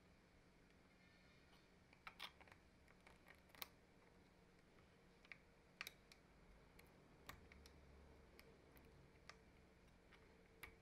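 Faint, irregular metal clicks, about eight of them, as a small screwdriver tip and a coiled wire retaining spring tick against the steel hex chuck of a Milwaukee M18 impact driver while the spring is pried off.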